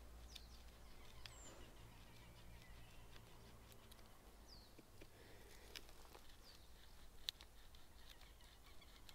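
Near silence: a few faint, short high bird chirps and a few soft ticks of a stone scraping into a dry stick.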